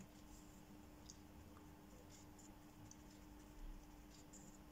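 Near silence: a few faint soft taps of a paintbrush dabbing gouache onto paper, over a faint steady hum.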